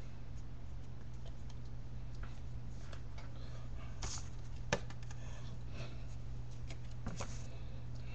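Steady low hum and faint room noise, with scattered small clicks and rustles of hands and body moving while signing, one sharper click about four and a half seconds in.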